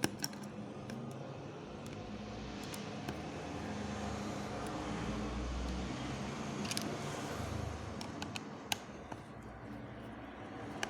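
Wahl Legend cordless-style hair clipper running with a steady buzz and rattle from its vibrating blade, with a few clicks as it is handled. The noise is still there after a blade adjustment, and the owner suspects the housing or a loose part may be causing it.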